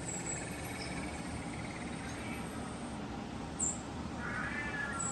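Persian kittens mewing faintly, with a longer high mew near the end, over a steady background hiss.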